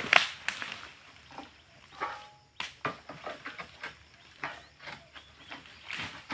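Long-pole harvesting sickle working at the oil palm's fronds and fruit stalks: a series of irregular sharp cracks and knocks as the blade strikes and pulls at the stalks.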